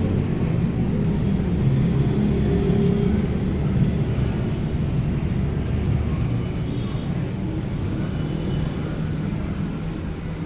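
A motor running with a steady low rumble that eases off slightly toward the end.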